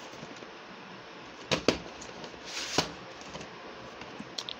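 Plastic VHS cassette being handled and pulled from its cardboard slipcase: a few sharp clicks and knocks, with a brief scraping slide between them and two small ticks near the end.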